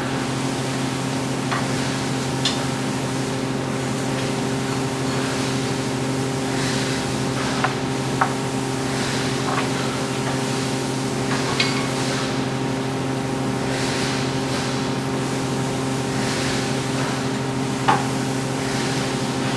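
Steady hum of a ventilation unit, holding several fixed tones. A few light clicks and knocks are scattered through it, from metal parts being handled during assembly.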